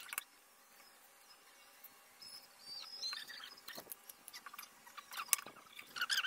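Sparse light clicks and knocks from pine boards being handled and set into a corner clamp, with a few faint high squeaks in the middle.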